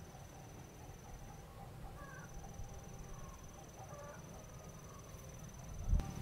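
Cricket trilling steadily at a high pitch, breaking off briefly about a second and a half in, over a low rumble with a few faint chirps. A single low thump near the end.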